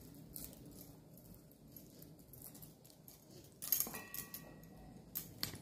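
Quiet room tone with a steady low hum, broken by a few faint clicks and rustles, with a short cluster of them about two-thirds of the way through.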